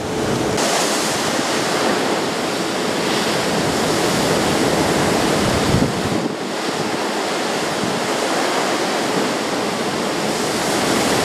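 Sea water rushing and spraying along the side of a cruise ship, mixed with wind on the microphone: a steady, loud rush of noise that dips briefly about six seconds in.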